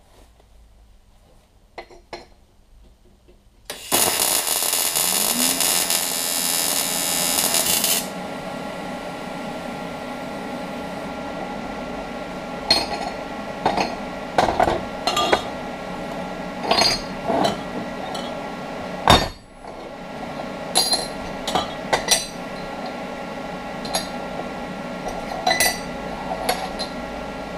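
AC TIG welding arc on aluminium, set to 80 Hz: a loud, harsh buzz starts suddenly a few seconds in, runs about four seconds and cuts off. After it a steady hum carries on while metal pieces clink and knock as they are handled on the steel bench, with one sharp knock about two-thirds of the way through.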